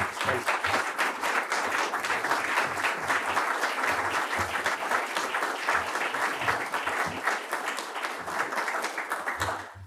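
Audience applauding: dense, steady clapping that dies away near the end.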